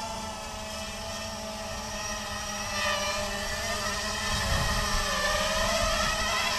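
Emax 250 Pro quadcopter's brushless motors and propellers whining in flight. The pitch wavers up and down with throttle corrections, and the sound grows louder about halfway through as the quad flies in close.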